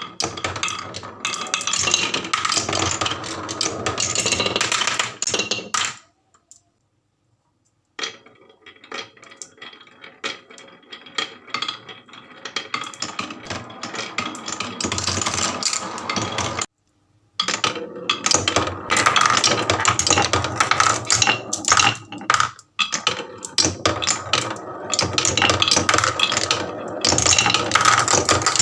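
Marbles rolling and clattering down HABA wooden marble-run slopes, a dense run of clicks and rattles. It cuts to silence for about two seconds some six seconds in and drops out briefly again later.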